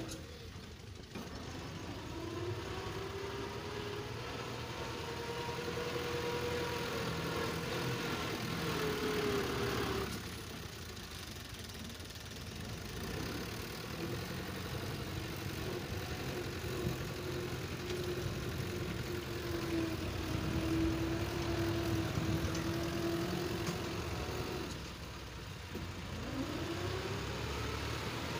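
Farm tractor diesel engine running under load, its pitch rising and falling slowly as the throttle changes. The sound changes abruptly about a second in, about ten seconds in and near the end.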